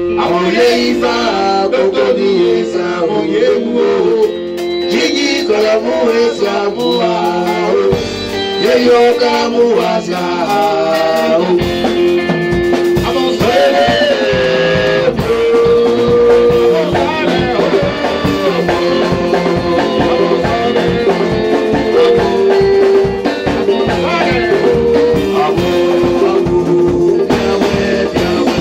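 Worship music: a man singing into a microphone over continuous instrumental accompaniment, with a long held note under the melody from about halfway through.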